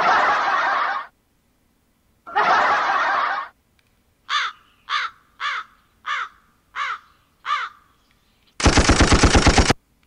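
Built-in sound-effect pads of an ICKB SO8 live-streaming sound card played back one after another: two short bursts of canned applause, then seven crow caws falling in pitch about two a second, then about a second of rapid machine-gun fire near the end, each effect cut off abruptly.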